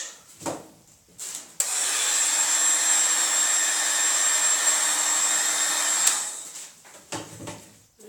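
Handheld heat tool blowing steadily over wet pour paint. It switches on suddenly about one and a half seconds in and cuts off about six seconds in, a steady hissing rush with a faint high whine.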